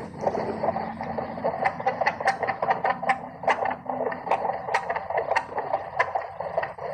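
Fetal heartbeat through a handheld fetal Doppler's speaker: a fast, regular pulsing whoosh, about two to three beats a second over a steady hiss. The heart rate is judged healthy.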